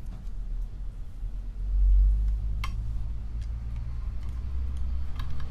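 Handling noise as a scaler handpiece cable and waterline are knotted by hand: a low rumble that swells about two seconds in, with scattered light ticks and one sharper click a little past the middle.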